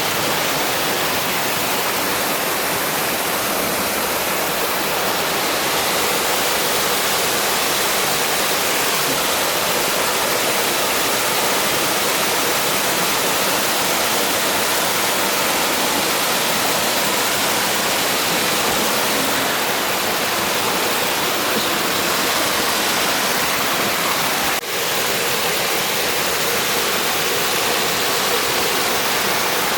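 Waterfall running with a high flow of water: a steady, dense rushing roar.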